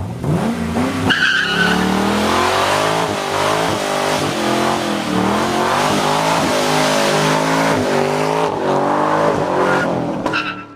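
2010 Camaro SS's straight-piped LS3 V8 held at high revs, the pitch wavering up and down, while the rear tyres squeal and spin in a burnout. It starts suddenly and is loud throughout, with sharper tyre squeals about a second in and near the end.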